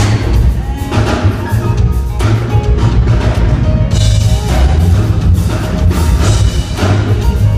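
A band playing loud music with drums and heavy bass and a steady beat.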